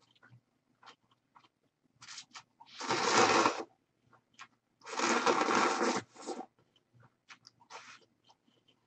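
Close-miked eating of instant ramen noodles and radish kimchi: two loud eating noises, each about a second long, about three and five seconds in, with quieter mouth sounds and light chopstick clicks between.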